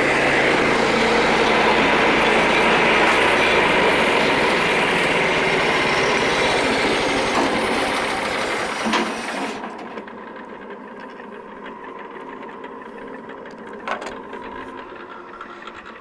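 Frontier OS27 bandsaw sawmill running loudly and steadily, then cut off about nine and a half seconds in, leaving a much quieter steady hum with an occasional click.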